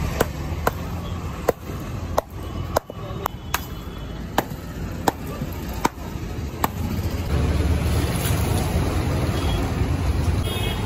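Wooden mallet pounding a slab of ice inside a cloth sack, about a dozen sharp blows at irregular spacing, roughly one a second. The blows stop about two-thirds of the way through, leaving a steady low street rumble.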